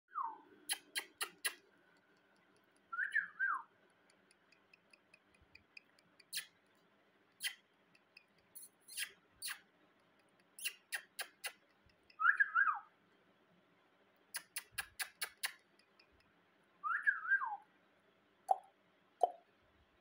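Rose-ringed parakeet giving four short whistles that waver and fall in pitch, with quick runs of sharp clicks between them and two short low chirps near the end.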